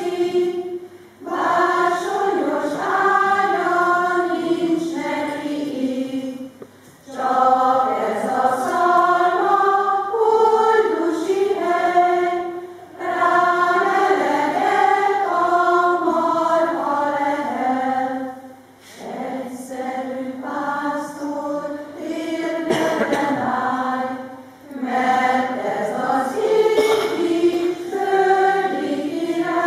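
Choir singing, phrase by phrase, with short breaks for breath between the phrases.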